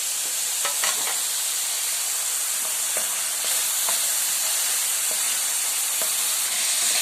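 Small pieces of meat sizzling in oil in a skillet: a steady frying hiss, with a few light clicks of a utensil stirring.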